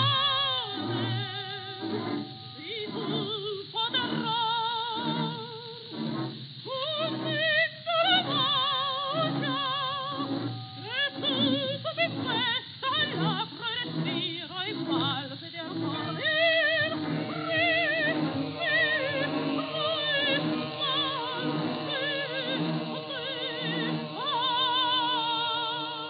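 A historical recording of an operatic soprano singing with a wide, fast vibrato over held accompanying tones. The sound is narrow and muffled like an old disc, with nothing heard above the upper midrange.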